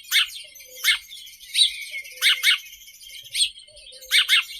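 House sparrow chirping: about eight short chirps, each sliding downward, coming roughly one or two a second, twice in quick pairs.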